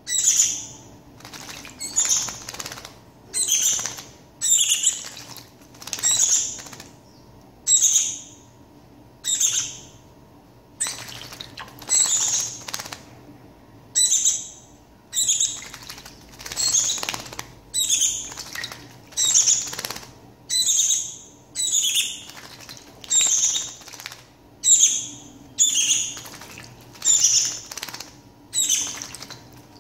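Shiny cowbird fledgling giving harsh, raspy calls over and over, about one a second, each starting sharply and fading out.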